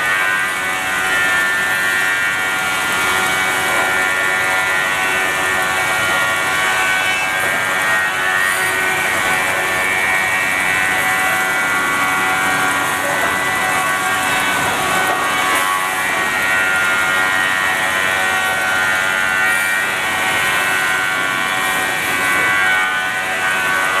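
Steady running of an automated timber crosscut-saw and conveyor line: a constant machine drone with several high, held whining tones and no distinct cutting strokes.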